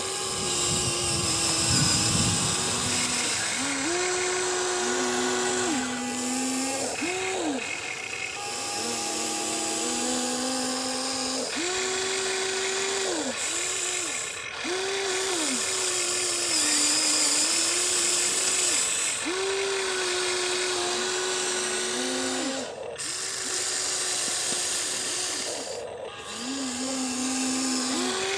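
Electric motors and gearing of a Huina 1593 remote-control excavator whining in short runs of one to three seconds, the pitch jumping between a few levels as different movements start and stop, over a steady gritty gear noise.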